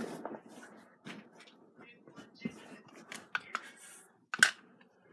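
Rustling with light taps and clicks of small objects being handled, and one sharper click near the end.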